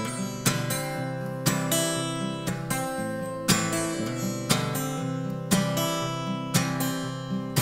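Martin acoustic guitar strummed in a steady rhythm, with an accented strum about once a second and lighter strokes between them.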